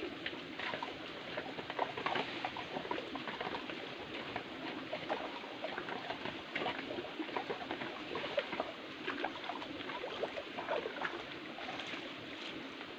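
Shallow rocky stream trickling steadily, with many short, irregular splashes and small knocks as hands stir the water, stones and dead leaves.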